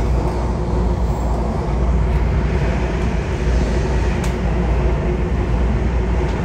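Miami Metrorail car running along the elevated track, heard from inside the cabin: a steady low rumble with a faint steady tone over it.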